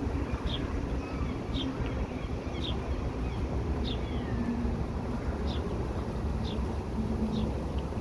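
Wind rumbling on the microphone by open water, with a bird chirping a short, high, falling note about once a second.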